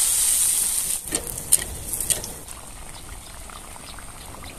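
Wheat-flour and semolina batter hitting hot oil in a kadai, deep-frying: a loud sizzle for about the first second that dies down to a quieter steady bubbling hiss with a few sharp pops of spattering oil.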